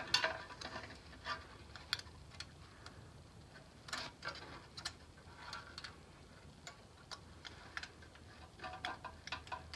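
Irregular light clicks and taps of hand tools and metal parts being handled during valve adjustment on a VW Beetle engine.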